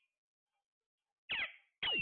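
Alexandrine parakeets calling: two short calls, each falling in pitch, about half a second apart in the second half, the second one louder.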